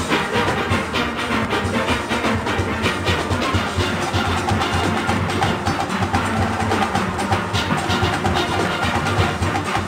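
Steel band playing: massed steelpans carry a fast, rhythmic melody over drums and percussion.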